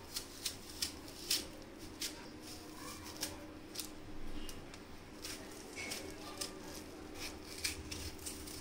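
Knife cutting into a watermelon: a series of sharp, irregular clicks and taps as the blade goes through the rind and flesh.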